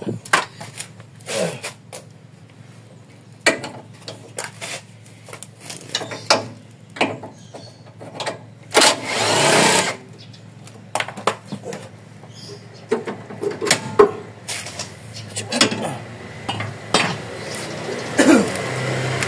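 Cordless impact wrench run in short bursts, undoing the stabiliser bar mounting bolts on a Daihatsu Taruna, among scattered metal clanks and knocks from the bar and tools. One longer burst comes about halfway through, and a buzzing run near the end.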